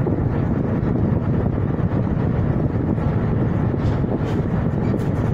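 Steady low rumbling noise of wind buffeting the microphone on the deck of a ship under way, with no clear engine tone.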